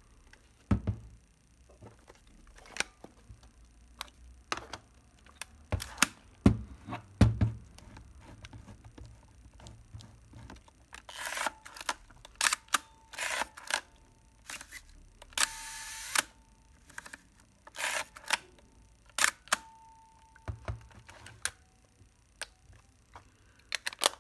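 Plaubel Makina 67 medium-format camera being worked by hand after repair: a series of sharp mechanical clicks and snaps. Midway come a few short rasping, winding runs, the longest about a second long.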